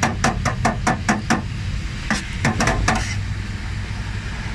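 Cleaver chopping cooked meat on a steel griddle: quick, even knocks about five a second, then a few slower strokes that stop about three seconds in.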